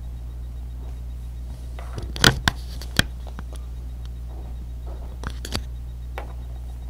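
Small plastic LEGO minifigure parts clicking and knocking as they are handled and fitted together close to the microphone, loudest in a quick cluster of clicks a little over two seconds in, with single clicks after. A steady low electrical hum runs underneath.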